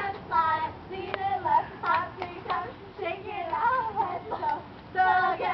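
Young people's voices singing and calling out, with a few sharp hand claps through the middle.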